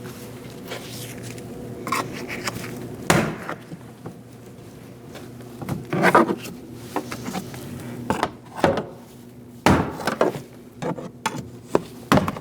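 Plastic door-panel retaining clips snapping loose as a trim tool pries a Chevrolet Colorado rear door panel away from the metal door. The snaps and knocks come unevenly, one to three seconds apart.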